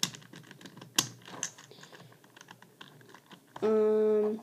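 Plastic pieces of a 4x4 Rubik's cube clicking and snapping as they are handled and pushed into place. Near the end a loud, steady, low buzzing tone comes in and lasts under a second.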